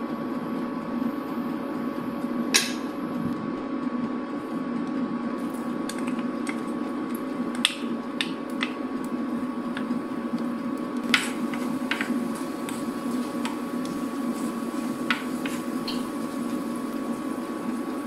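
Sliced garlic frying in oil in a pan, a light sizzle that fills in a few seconds in. A wooden spoon clicks sharply against the pan about half a dozen times, over a steady hum.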